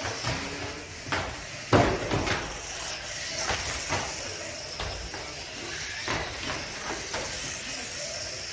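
Radio-controlled ministock racing cars running on a carpeted oval, their electric motors giving a steady high whine. Over it come repeated sharp knocks of the cars striking the track barriers, the loudest about two seconds in.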